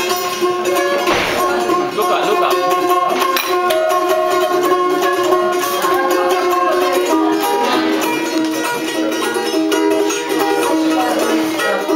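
A small long-necked plucked lute strummed to play a tune, with its notes rung out steadily.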